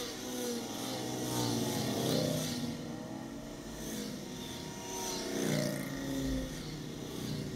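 A line of motorcycles riding past one after another, each engine note swelling and dropping in pitch as it goes by. The loudest passes come about two seconds in and again about five and a half seconds in.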